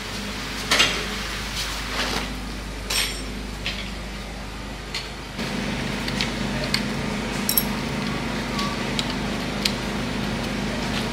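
Scattered light metallic clinks and taps of hand work with tools on a sprint car, over a steady low hum that gets louder about five seconds in.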